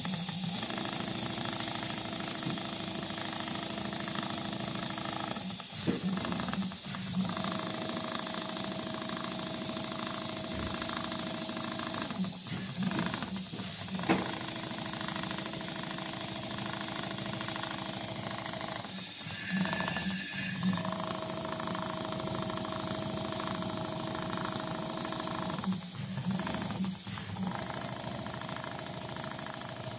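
Richpeace rotating-head computerized pattern sewing machine running, a steady high hiss over a fast stitching chatter, briefly dipping several times.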